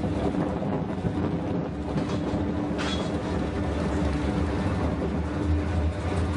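Roller coaster train running along its track: a steady low rumble with a constant hum, and a brief rushing noise a little under three seconds in.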